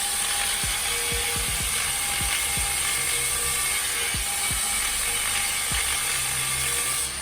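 A shop power tool running steadily with a constant high-pitched whine, dipping briefly near the end.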